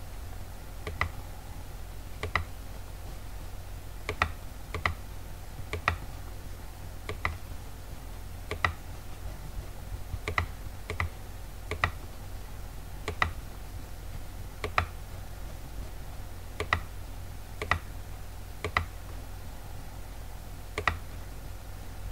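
Computer mouse clicking: single sharp clicks, roughly one a second and unevenly spaced, over a steady low hum.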